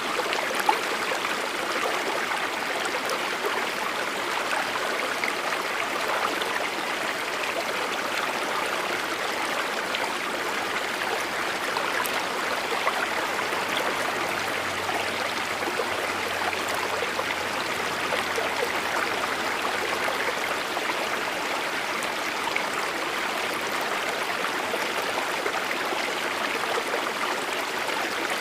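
Waterfall in monsoon flow: a steady, unbroken rush of falling and splashing water.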